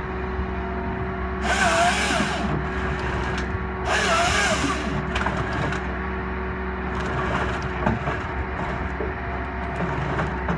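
Tracked log processor's diesel engine running steadily while its processor head grips and feeds a log, with two loud bursts of cracking, splintering wood and squealing about a second and a half and four seconds in as limbs are stripped.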